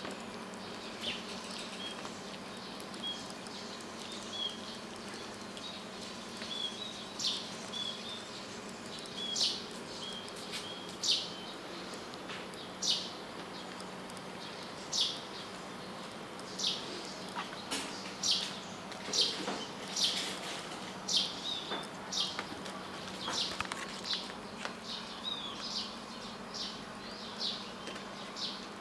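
Small birds chirping: short, high, downward-sweeping calls every second or two, mixed with brief level tweets, over a faint steady hum.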